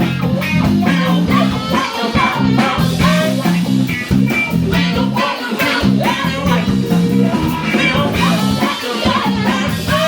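Live band playing an upbeat song with electric guitar, bass guitar and drums keeping a steady beat, during a sound check.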